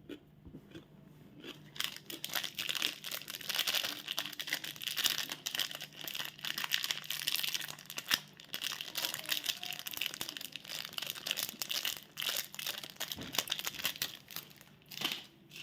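Candy wrapper crinkling and tearing as it is handled and opened by hand: a dense crackling rustle that starts about two seconds in, with a louder crinkle near the end.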